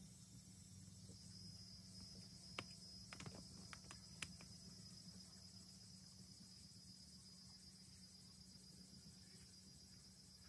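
Faint, steady, high-pitched chirring of insects, with a handful of light clicks between about two and four seconds in.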